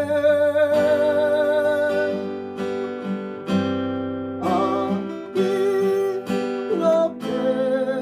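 Acoustic guitars strumming a slow ballad accompaniment, with the singer's last note held and wavering over the first couple of seconds before the guitars carry on alone.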